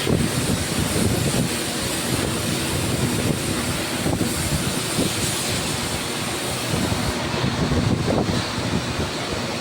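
Steady, loud industrial machinery noise: a low rumble with a constant hiss over it and no break or change.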